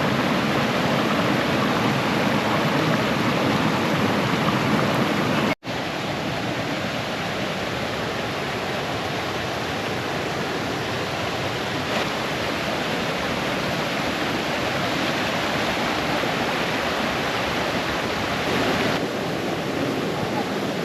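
Steady rushing of a brook cascading over stones. About five and a half seconds in the sound drops out for an instant, then comes back a little quieter.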